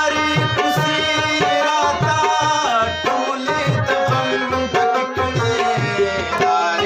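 Live Pashto ghazal accompaniment: a tabla playing a steady rhythm, its bass drum sliding down in pitch on the low strokes, under the melody of a rabab.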